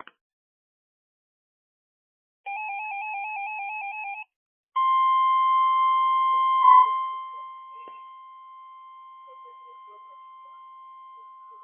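Electronic emergency alert signals: a warbling two-tone beep for about two seconds, then the steady single-pitch weather-radio warning alarm tone near 1 kHz (the NOAA 1050 Hz tone), loud at first and then dropping to a much lower level but carrying on.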